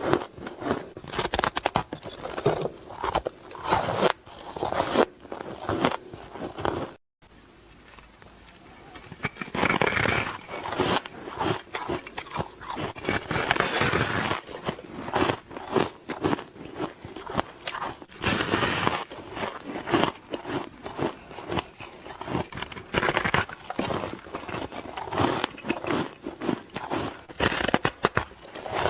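Close-miked person biting and chewing ice, with many sharp, irregular crunches in quick succession and a brief gap about seven seconds in.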